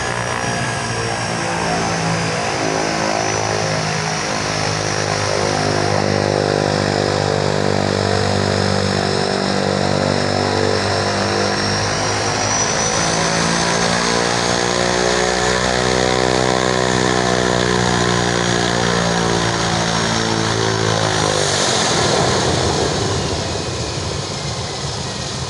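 Air Tractor turboprop aircraft taxiing past at close range: a steady propeller and engine drone with a high turbine whine above it, its pitch bending as the plane goes by. Near the end the low drone drops away and the sound fades to a rushing noise.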